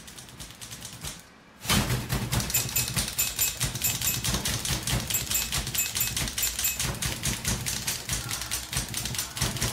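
Manual typewriter typing: keys clacking rapidly, several strikes a second, starting abruptly about two seconds in.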